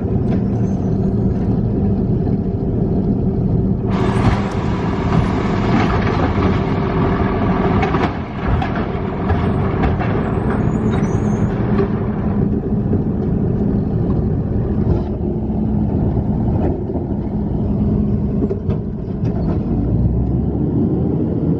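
Garbage truck's engine running close by, with a loud hiss from about 4 to 12 seconds in.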